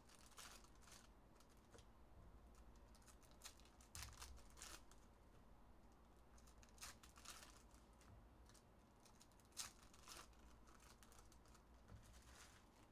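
Foil trading-card pack wrappers being torn open and crinkled, with cards handled between. The crinkles are faint and come in short bursts scattered through, the loudest around four seconds in and again near the middle.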